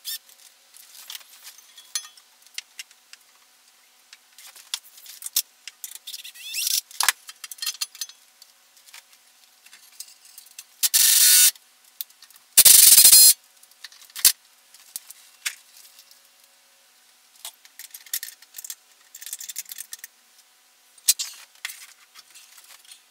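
Cordless drill with a socket on the rototiller engine's mounting bolts, running in two short bursts about halfway through, the second the louder. Around them, scattered clinks and rattles of metal tools and parts being handled.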